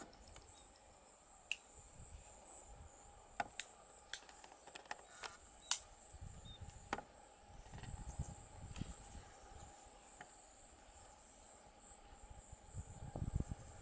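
Faint outdoor ambience of insects chirping steadily in a high-pitched band, broken by scattered sharp clicks and a few low rumbles.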